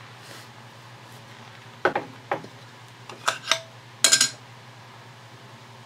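Metal tin of paste finishing wax being opened by hand: a few sharp metallic clicks as the lid is worked off, then a short ringing clatter of the metal lid near the end.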